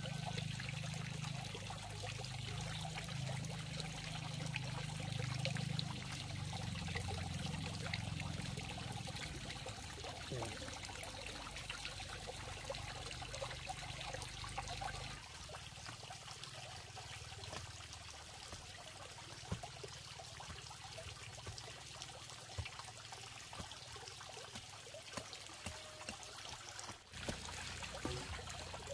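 Running water trickling steadily, with a low rumble underneath that drops away about halfway through.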